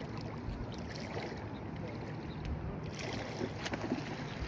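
Steady low rumble of river current with wind on the microphone, and a few light clicks about three to four seconds in.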